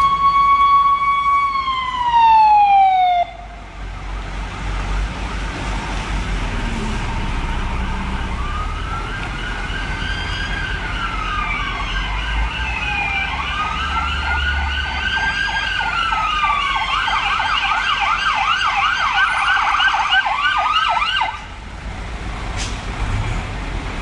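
Fire engine siren: a held wail tone that falls away and stops, then after a few seconds a new wail rising and falling slowly, changing into a fast yelp before cutting off abruptly. Low traffic rumble runs underneath.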